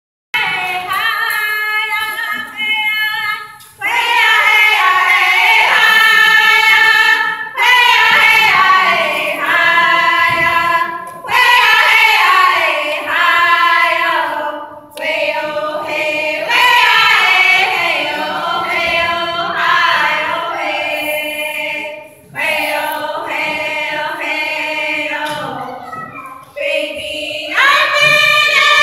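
A group of women singing a round dance song together, without drums, in long phrases broken by short pauses for breath.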